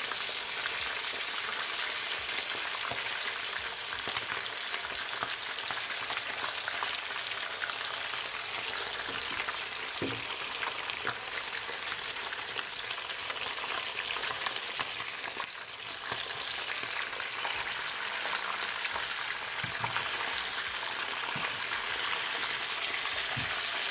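Whole snapper deep-frying in hot vegetable oil in a frying pan: a steady, dense crackle and sizzle. A few light clicks of the spoon and tongs against the pan come as the fish are turned over.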